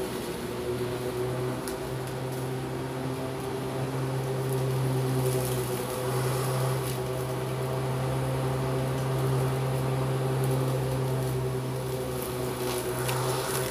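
Electric hover mower running with a steady motor hum as it is worked over the grass.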